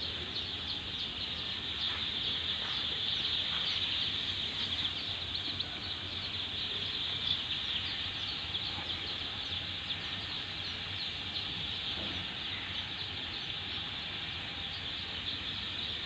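A large flock of four-day-old chicks peeping all at once: a steady, dense chorus of high chirps.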